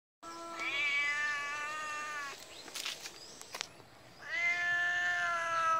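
Domestic cat giving two long, drawn-out meows, each held at a nearly steady pitch for about two seconds, with a short gap between them.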